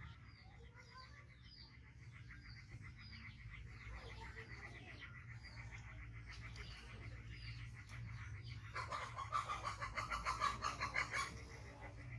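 Short high animal chirps repeating, then a quicker, louder run of pulsing chirps about three-quarters of the way through.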